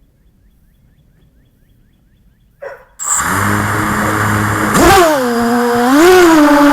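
Quiet at first, then a short noise, and about three seconds in the Storm SRD250 V3 racing quadcopter's motors spin up with a loud whine. The pitch drops and climbs again twice as the throttle changes.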